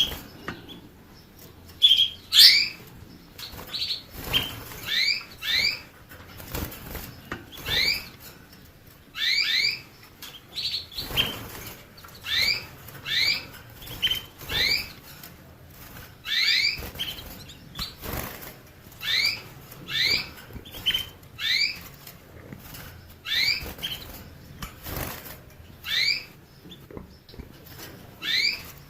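Canary calling with short rising chirps, mostly in twos and threes, repeated every second or two, with a few soft knocks in between.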